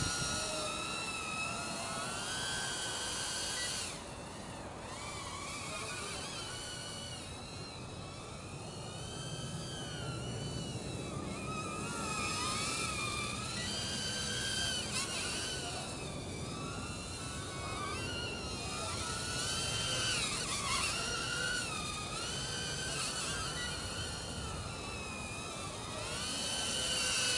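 FlexRC Nano X 1S micro racing quadcopter in flight: its four tiny 0703 brushless motors spin 40 mm propellers with a relatively loud, high-pitched whine that keeps rising and falling in pitch as the throttle changes.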